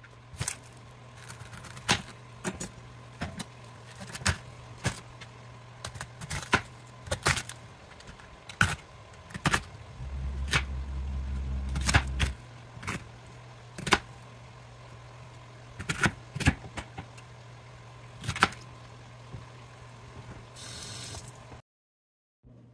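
A kitchen knife cutting a fennel bulb on a plastic cutting board: irregular sharp knocks about once a second as the blade hits the board, over a steady low hum, with a low rumble for about two seconds near the middle.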